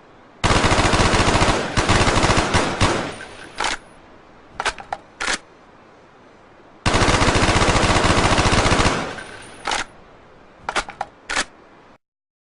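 Steyr AUG bullpup rifle firing two long bursts of fully automatic fire, the second starting about seven seconds in, each trailing off into a few separate sharp shots or clanks.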